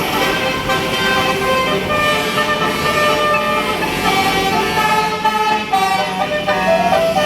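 Basuri telolet horn on a tour bus playing a melody: several air-horn tones sounding together and stepping from note to note, the notes coming quicker near the end.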